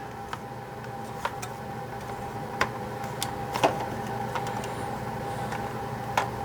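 Scattered light clicks and taps of the hard plastic parts of a G.I. Joe Rolling Thunder toy vehicle being handled and fitted together during reassembly, over a faint steady hum.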